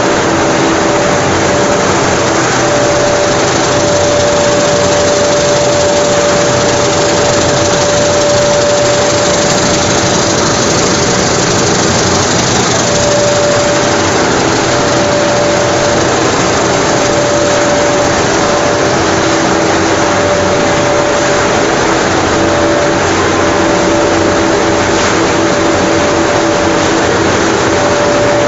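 Dog food production line machinery running: a loud, steady mechanical noise with a hum tone that drops out and returns every few seconds.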